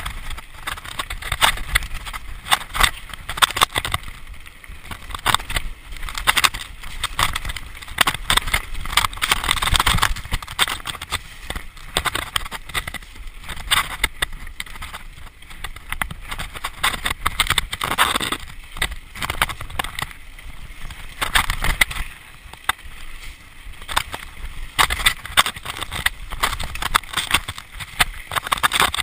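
Mountain bike rattling and clattering down a rough, stony trail: an unbroken run of irregular knocks from the tyres and frame striking rocks and bumps.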